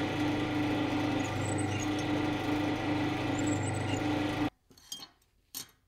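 Drill press running steadily with a small tool spinning in its chuck while a small stainless steel part is held against it, an even motor hum throughout; the sound cuts off suddenly about four and a half seconds in, followed by a couple of faint knocks.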